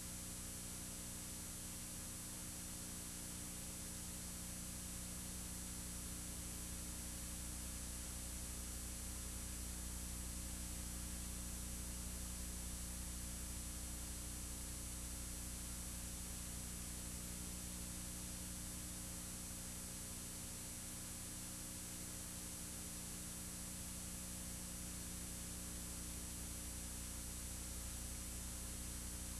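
Steady hiss with a low electrical hum and faint steady whine tones, unchanging throughout: the noise floor of a silent home movie's transfer, with no recorded sound of its own.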